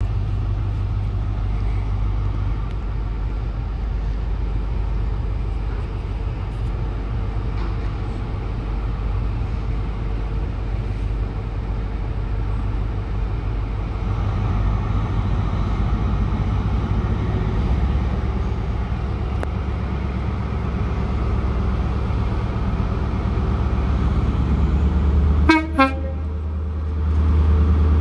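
Class 43 HST power car's MTU V16 diesel engine running with a deep steady drone as the train draws slowly into the platform, growing louder about two-thirds of the way in and again near the end. A brief toot of the horn sounds near the end.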